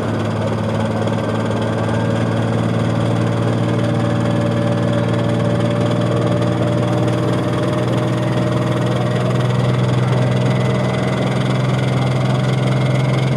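Diesel engine of a 10,000 lb pro stock pulling tractor running hard under load during a pull, a steady heavy drone that climbs slowly in pitch.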